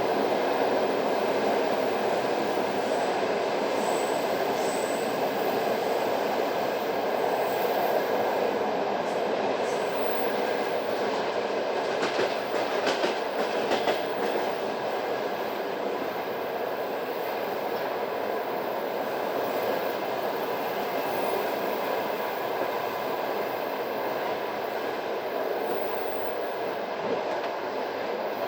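Passenger train running at speed, heard from on board: a steady rumble of wheels on rail. About halfway through comes a short run of sharper clacks, typical of wheels passing rail joints or points.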